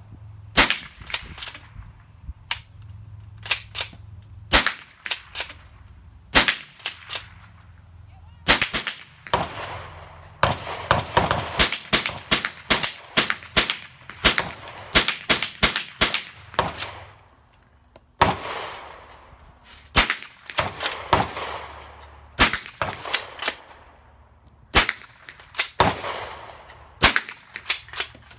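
.22 rifle shots fired again and again, sharp light cracks, some spaced out and some in quick strings of about two a second, each followed by a short echo.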